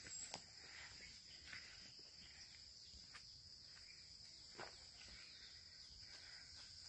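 Faint, steady, high-pitched drone of insects in the forest, with a few soft footsteps.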